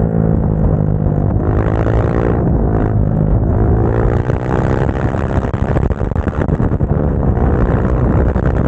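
Motorcycle engine heard from onboard, accelerating and easing off repeatedly, its pitch rising and falling with throttle and gear changes, with wind noise over the microphone.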